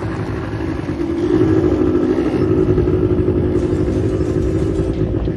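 Quad bike (ATV) engine running close by, getting a little louder about a second in.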